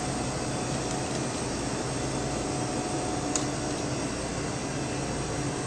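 Steady fan-like hum and hiss of commercial kitchen machinery, with one faint sharp tap about three and a half seconds in.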